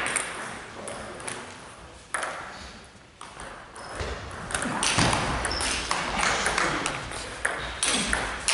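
Table tennis ball clicking off the bats and the table during a rally: a few sharp, separate hits at first, then a denser, louder run of hits from about halfway.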